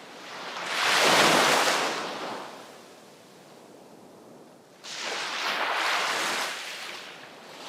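Sea waves breaking on the shore: one wave crashes about a second in and washes out, then after a lull a second wave breaks sharply near the five-second mark and fades.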